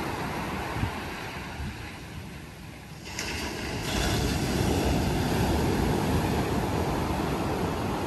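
Pacific Ocean surf breaking on a sandy beach: the wash quietens for a moment, then a wave breaks about three seconds in and the surf runs louder after it.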